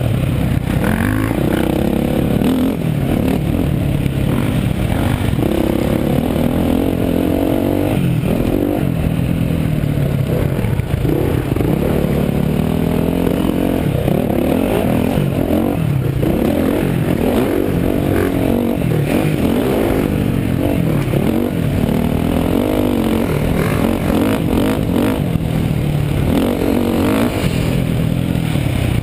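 Motocross bike engine revving hard at race pace, its pitch climbing and dropping again and again as the throttle opens and closes through the gears.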